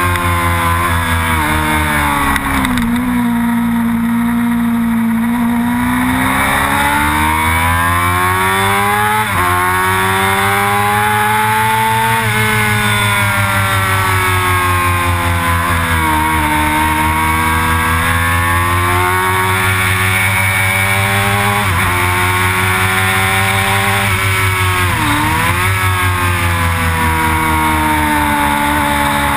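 Sportbike engine under hard track riding, its pitch climbing through the revs under acceleration, dropping sharply at gear changes and falling away under braking, with steady wind rush.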